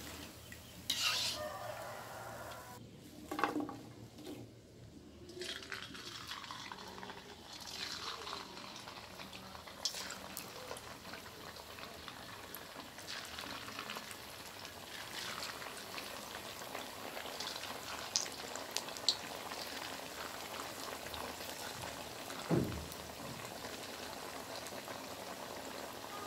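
Potato-poha fingers deep-frying in oil in an iron kadhai: a steady sizzle and bubbling that eases off a few seconds in and builds again from about six seconds as a new batch fries. A few sharp clinks of a wire skimmer against the pan.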